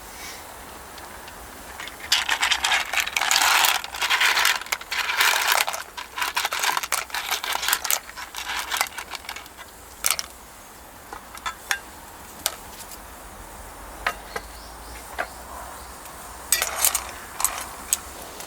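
Small objects being handled: a flurry of rustling and light clinks about two seconds in lasting several seconds, scattered single clicks after, and another short flurry near the end.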